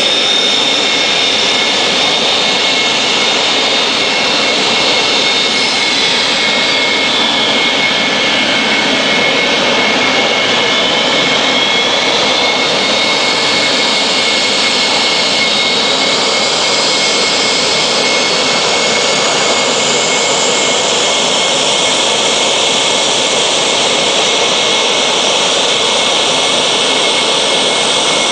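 Dassault Mirage fighter's turbojet running at taxi power: a loud, steady jet noise with a high whine. The whine drops in pitch about six seconds in and climbs back up over the next several seconds.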